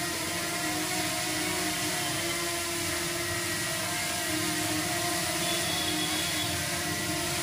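DJI Mini 2 drone's propellers whirring steadily in flight, a high whine made of several held tones over an even hiss.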